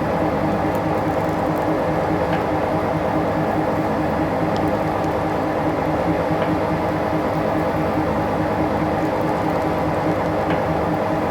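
Heavy machinery running steadily: an even, loud mechanical hum with several held tones, and a few faint ticks scattered through it.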